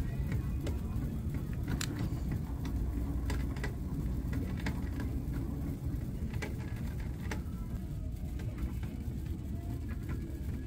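Shopping cart being pushed across a store floor: a steady low rumble from the wheels, with a few light clicks and rattles scattered through it.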